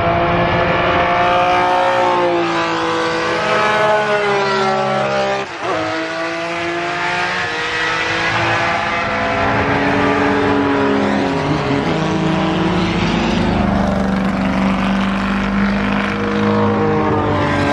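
Historic 1960s BRM Formula One racing cars running at speed past the trackside, their engine notes rising and falling in pitch with the throttle and gear changes. There is a brief drop in loudness about five and a half seconds in. A steadier engine note is held later on.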